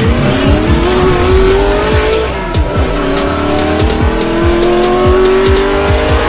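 A car engine accelerating hard, its pitch climbing, dropping at a gear change about two seconds in, then climbing again, over music with a heavy, regular beat.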